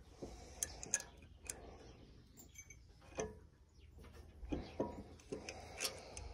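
Irregular sharp metallic clicks and clinks, about seven in a few seconds, from hand work on a hay baler's piston, with tools and parts knocking against the steel frame.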